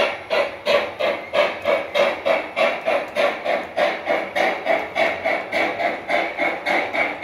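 Sound unit of a 1:32-scale (gauge 1) model steam locomotive chuffing steadily, about three beats a second, the beat quickening a little near the end.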